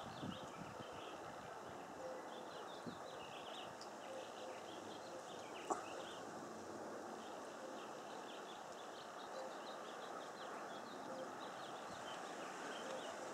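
Outdoor ambience of many small birds chirping and twittering over a faint, steady hiss, with a single sharp click about six seconds in.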